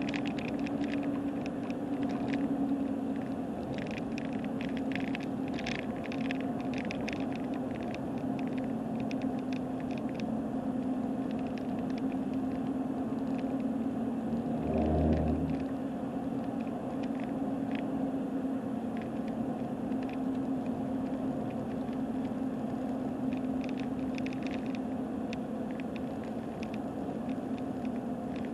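Steady road and engine drone heard from inside a moving car, with bursts of light rattling on and off and one brief low thump about halfway through.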